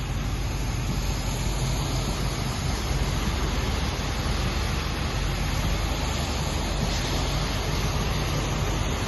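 Heavy rain pouring down in a steady, even rushing hiss with a low rumble underneath.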